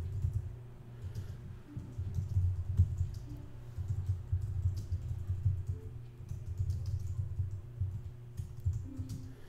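Computer keyboard being typed on in irregular clicks, over background music with a low bass line and a soft melody of short notes.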